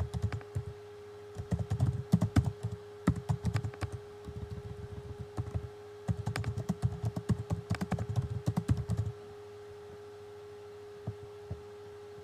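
Typing on a computer keyboard in quick bursts of key clicks, which stop about nine seconds in. A few single clicks follow near the end.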